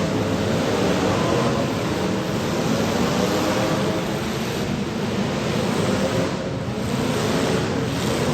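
Demolition derby cars' engines running together, several engine notes over a steady rushing noise.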